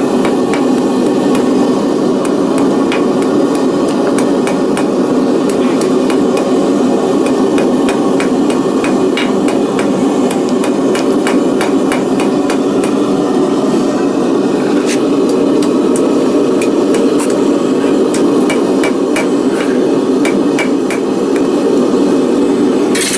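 A forge running with a steady roar under quick, irregular runs of hammer blows on hot steel at the anvil, as the point of a small scribe is drawn out.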